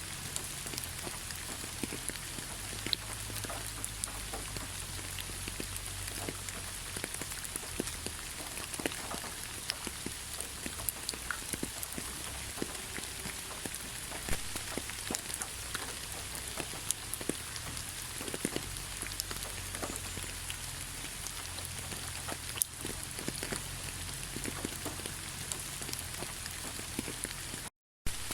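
Heavy rain falling steadily, a dense hiss with many individual drops ticking on a surface. The sound cuts out completely for a split second near the end.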